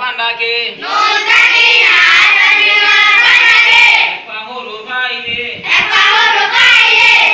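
A group of children reciting aloud in unison in a sing-song chant, a Quran-reading drill, in two loud stretches with a single voice in between.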